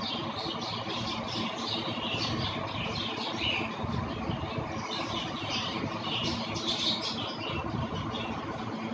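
Many small cage birds chirping and squawking in quick, overlapping calls, over a steady low rumble.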